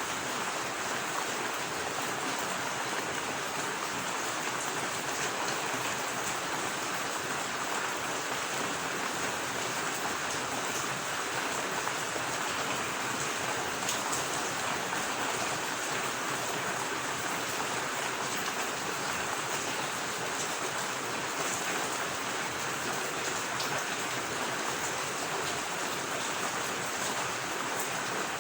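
Steady rain falling alongside running water: an even, unbroken hiss with no change in level.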